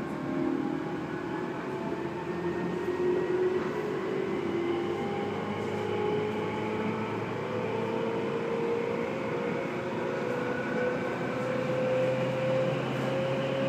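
Electric commuter train running, heard from inside the car: a steady rumble and hiss with a whine that climbs slowly in pitch, as the traction motors gather speed.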